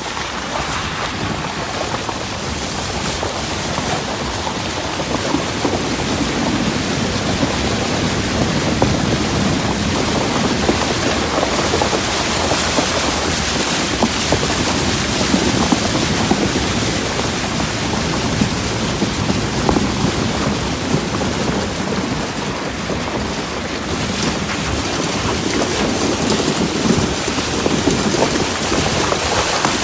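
A vehicle driving through muddy floodwater on a road, its wheels churning and splashing the water in a steady wash, mixed with wind on the microphone.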